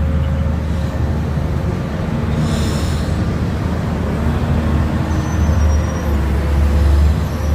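Loud, steady low rumble of outdoor noise, swelling about five to seven seconds in.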